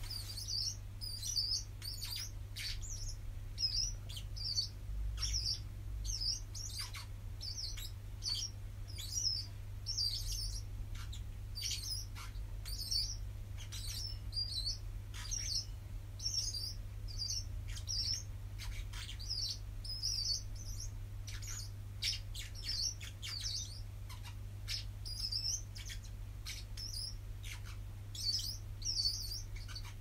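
Small green parrots chirping over and over, short high calls about once or twice a second, over a steady low hum.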